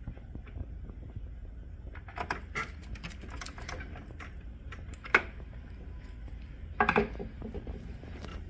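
Plastic printer cover panels being handled and pressed into place, giving irregular clicks and snaps over a steady low hum. The sharpest snap comes about five seconds in, with a quick cluster of clicks about two seconds later.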